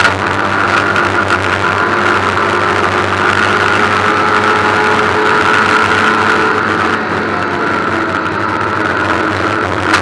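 Ford Puma cup race car's engine running hard at track speed, heard from inside the stripped cabin with road and wind noise. It drops slightly in loudness and loses some of its high end about seven seconds in.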